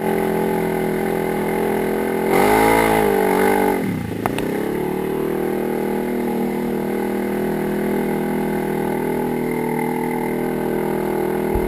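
Polaris RZR 900 XP side-by-side's twin-cylinder engine running steadily, revving up and wavering briefly about two seconds in, then dropping back and settling at a steady pace.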